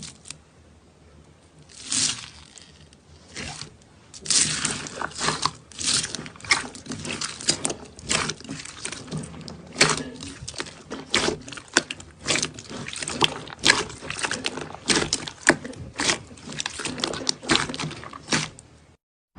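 Slime being squeezed and pressed by hand, giving an irregular run of crackling pops and squelches. A few come in the first seconds, then a dense stream starts about four seconds in, and it cuts off just before the end.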